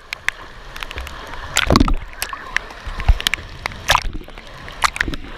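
Water sloshing and splashing as people move through a fast-flowing stream, with a few sharp splashes standing out about two seconds in and again near four seconds.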